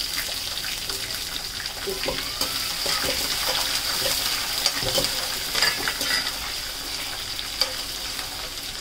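Freshly added chopped onions sizzling in hot oil in a kadhai, a steady frying hiss. A metal slotted spatula stirs them, with scattered clicks and scrapes against the pan.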